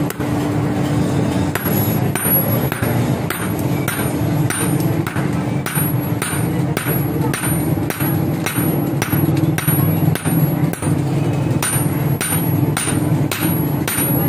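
Blacksmith's hammer striking metal while a sickle is forged, in a steady rhythm of about two blows a second over a steady low hum.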